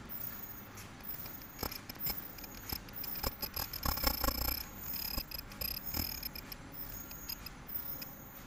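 Non-woven D-cut bag making machine running, its mechanism giving off irregular sharp clicks and knocks that bunch together about four seconds in, over a faint steady high whine.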